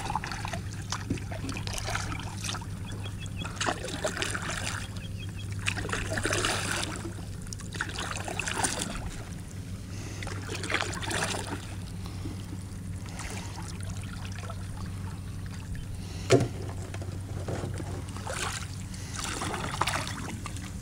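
A boat motor running steadily in the background with a low, even hum, overlaid by intermittent rustling and one sharp knock about sixteen seconds in.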